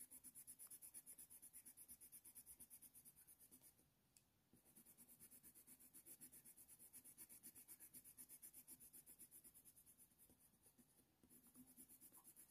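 Faber-Castell Polychromos coloured pencil scratching on hot-press watercolour paper in rapid short shading strokes, several a second. It is faint, with a brief pause about four seconds in.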